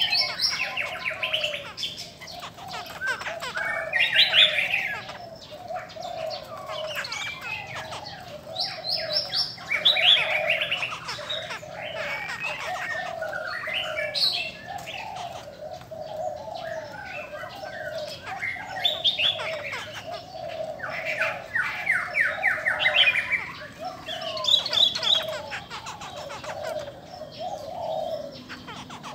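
Caged laughingthrushes singing. Loud bursts of rapid whistled notes come every few seconds over a steady lower run of short repeated notes.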